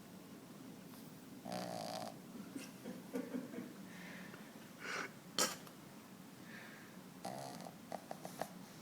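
Boston terrier puppy snoring in its sleep: two rattling snores, about a second and a half in and again near the end, with softer snuffles and a sharp click between them. Snoring like this is typical of the breed's short, flat-faced airway.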